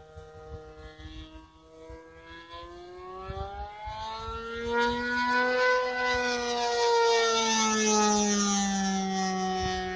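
Model airplane's OS .55AX two-stroke glow engine with a Pitts-style muffler, turning a 13x6 propeller, whining as the plane flies past. It grows much louder about halfway through, its pitch rising and then falling away near the end.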